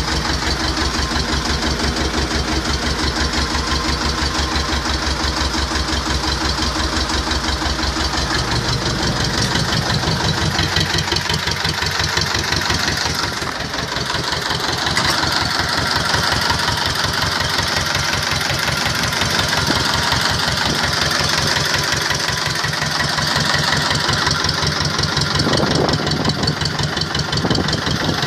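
T-25 tractor's two-cylinder air-cooled diesel engine running with an even pulsing beat. About nine seconds in its speed rises, and it then runs steadily at the higher speed.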